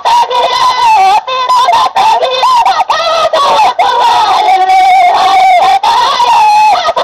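High-pitched singing of a Sindhi molood, a devotional song, in long winding phrases that slide between notes.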